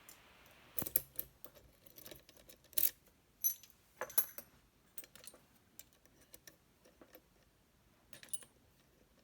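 Small metal parts clicking and jingling as a Lockman Megacross SP lock and its keys or tools are handled: irregular sharp clicks, busiest in the first half and thinning out toward the end.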